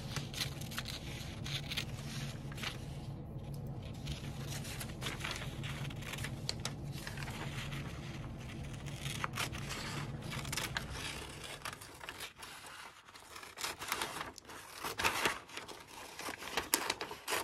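Scissors snipping along the edge of a large paper sheet, with the paper rustling as it is handled; the rustling and crinkling grow louder and more irregular in the last few seconds. A steady low hum sits underneath for the first twelve seconds or so.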